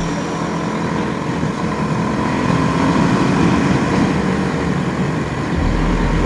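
Onboard sound of a TVS Apache RR310 motorcycle cruising: its single-cylinder engine runs with a steady rush of road and riding noise, and a deeper low rumble comes in near the end.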